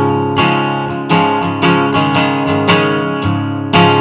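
Acoustic guitar strummed in an instrumental break between sung lines, with chords struck about twice a second.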